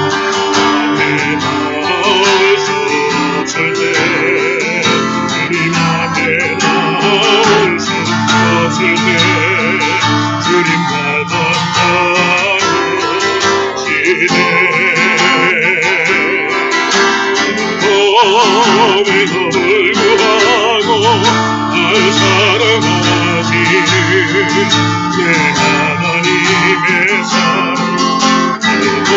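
Strummed acoustic guitar accompanying a voice singing a Korean gospel chorus.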